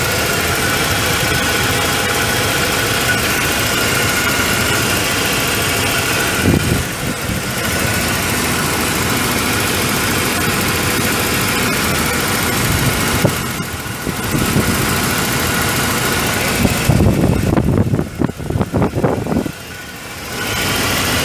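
A 1996 Ford F350's 5.8-litre V8 gas engine running at idle, a steady sound. Near the end it turns choppy and uneven for a couple of seconds, then dips briefly before settling back.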